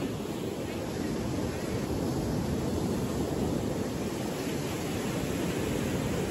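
Steady wind rushing on the microphone, mixed with small waves breaking on a lake beach.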